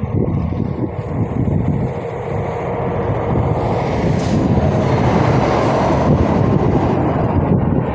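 Heavy truck hauling a tracked excavator on a low-loader trailer passing close by: a rumble of engine and tyres that builds to its loudest about five to seven seconds in.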